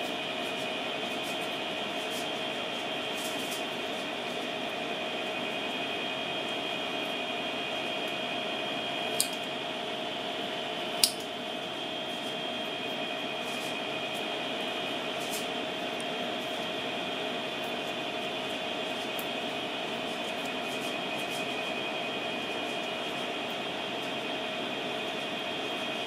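A steady mechanical hum with a few constant whining tones, broken by two sharp clicks about nine and eleven seconds in, the second the louder.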